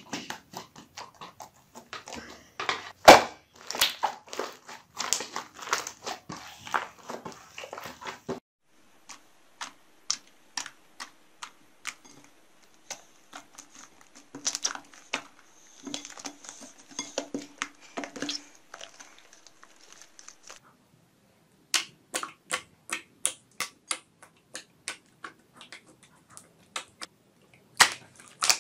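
Hands squeezing, poking and folding slime: a run of sticky clicks, pops and squelches as air pockets in the slime burst. The character of the clicking changes twice, at about 8 and 21 seconds in.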